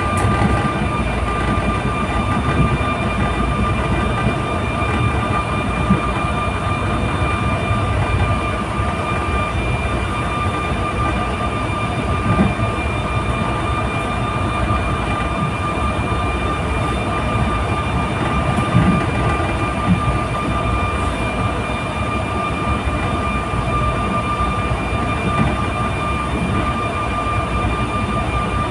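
Inside a moving electric suburban train: the steady running rumble of the wheels on the track, with a constant high whine and a few brief knocks.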